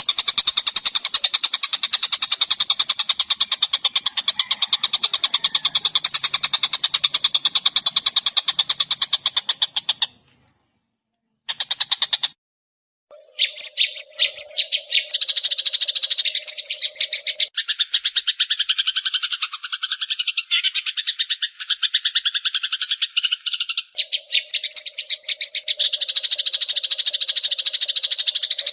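Rapid, continuous pulsed trilling of a small songbird, very fast chirps repeated without pause. The sound cuts out for a couple of seconds about ten seconds in, then resumes.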